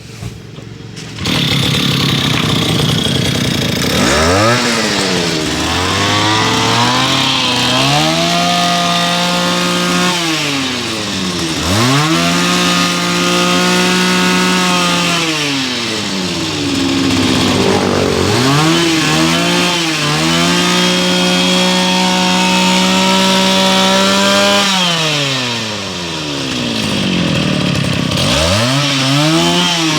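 Komatsu B365Z brush cutter's small two-stroke petrol engine (36 mm piston) comes to life about a second in, then is revved again and again: it climbs to a high whine, holds for a few seconds and drops back toward idle.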